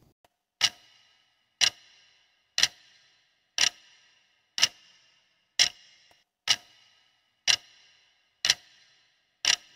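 Clock-tick sound effect of a quiz countdown timer: ten short, sharp ticks, one a second, counting down the answer time.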